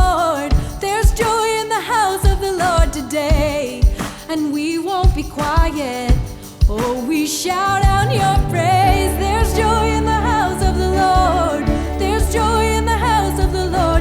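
Live worship band music: a wavering sung or lead melody over regular drum strikes, with a steady low bass coming in about halfway through.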